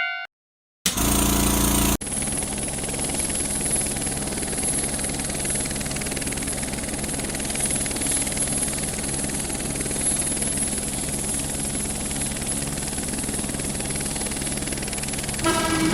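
Vehicle running-noise sound effect: a steady rumble with a rapid low pulsing and a thin high whine above it, opening with a louder burst. A horn-like tone sounds near the end.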